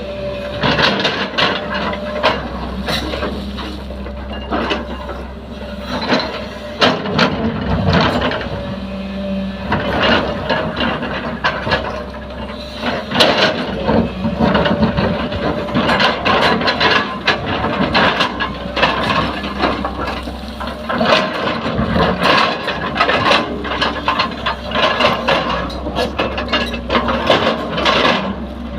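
JCB 3DX backhoe loader's diesel engine running steadily, with frequent irregular clanks, knocks and scraping from the hoe working.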